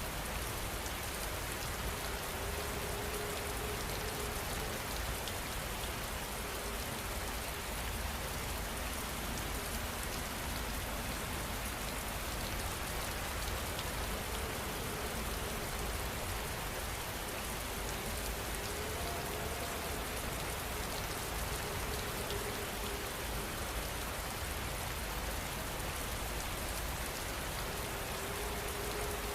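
Steady, even rainfall, dense drops pattering on surfaces. A faint wavering low tone comes and goes every few seconds beneath it.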